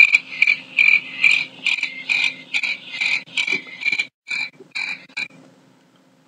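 The "Loud crickets" sound effect from a phone soundboard app: recorded cricket chirping, an evenly repeated chirp about two or three times a second, that cuts off about five seconds in.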